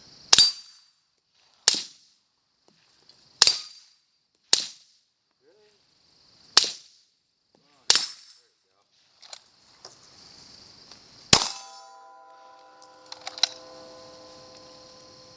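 Pistol shots fired outdoors, about seven sharp reports at uneven intervals of one to two seconds, with a longer pause before the last. Insects chirr steadily between the shots.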